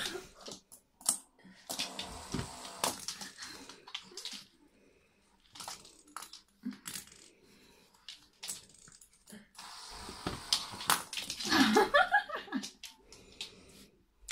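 Small dog pawing and nosing a plastic fidget spinner on a laminate floor: scattered clicks and knocks of plastic and claws on the floor, with stretches of scuffling. A short vocal sound comes about eleven seconds in, the loudest moment.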